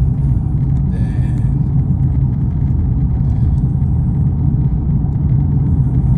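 Audi S5 engine running steadily with a low, even rumble and no misfire to be heard.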